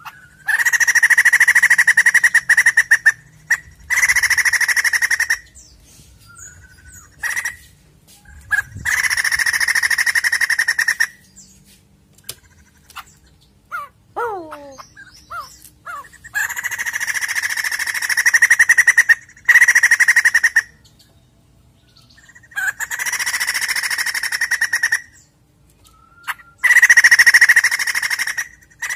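White-crested laughingthrush calling: loud, harsh, rapid chattering in repeated bursts of two to four seconds with short pauses between. About halfway through there is one short falling whistled note.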